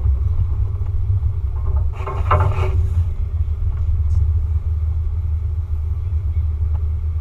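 Steady low rumble of a vehicle driving slowly over a gravel and cobble shoreline, heard through a camera mounted on its hood. About two seconds in there is a brief rush of louder noise.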